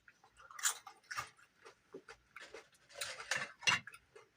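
A person chewing food close to the microphone, with irregular wet mouth sounds and short crackly bites, the busiest stretch about three seconds in.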